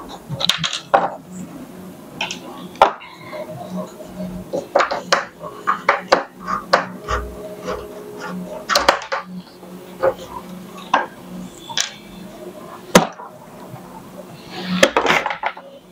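Parts being pulled off PEX tubing and set down on a wooden workbench: scattered clicks, knocks and rubbing, with a sharp knock about thirteen seconds in and a quick run of knocks near the end.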